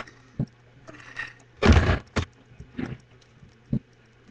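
A few short knocks and clicks, with one louder, heavier thud about halfway through.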